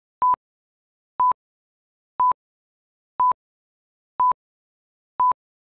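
Countdown leader beeps: six short, identical electronic beeps at one steady pitch, one a second, with silence between them.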